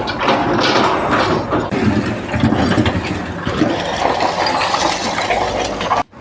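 Loud, dense mechanical clatter with an engine running, full of irregular knocks and rattles, cutting off abruptly near the end.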